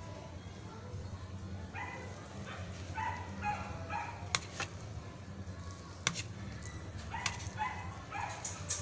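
A dog barking in short, high yips, in a run of several about two seconds in and again from about seven seconds. Between them come a few sharp clicks of a metal spatula on a ceramic plate, over a low steady hum.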